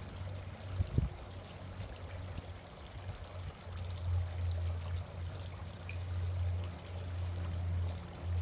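Water running and trickling steadily over a low rumble that grows stronger after about three and a half seconds, with a single thump about a second in.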